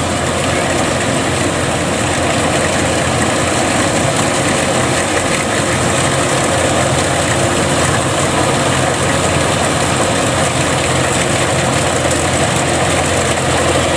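Kubota DC105X rice combine harvester running steadily while cutting and threshing rice: the diesel engine drone mixed with the clatter of the reel, header and threshing drum.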